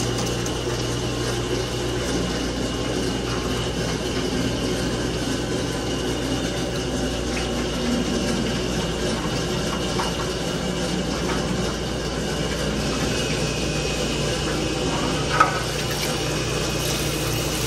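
Cooking-oil filtration machine's pump motor running with a steady hum while it pumps filtered fryer oil back into the fryer vat, the oil flowing in steadily.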